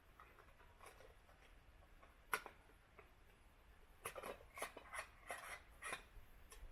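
Faint handling noise: one sharp click about two seconds in, then a quick run of soft clicks and rustles near the end.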